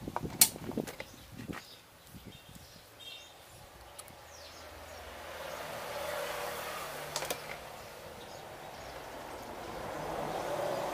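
A few sharp clicks and taps in the first second and a half as hands handle scooter wiring and a tool, with one more click about seven seconds in. A short high chirp near three seconds over faint outdoor background noise that swells twice.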